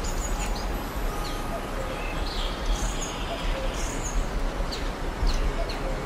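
Several small songbirds chirping and singing: short high chirps and slurred whistled notes come one after another, over a steady background hiss and low rumble.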